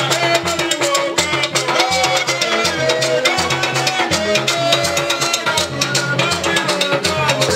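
Loud dance-band music: drums and percussion over a repeating bass line, with a lead voice singing into a microphone.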